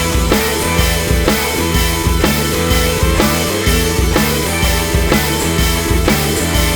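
Background rock music with a steady drum beat, about two beats a second.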